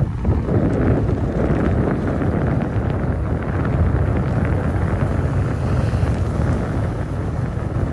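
Wind rushing over the microphone of a phone held on a moving motorcycle, with the bike's steady engine and road noise underneath.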